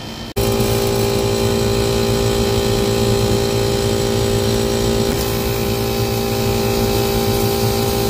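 Steady drone of rooftop HVAC machinery running: a hum with a broad rushing noise. It starts abruptly about a third of a second in and holds unchanged.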